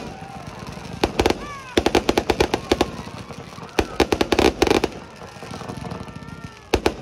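Fireworks display: rapid volleys of sharp bangs and crackles in bursts, about a second in, again from about two to three seconds, around four seconds and near the end, with quieter lulls between.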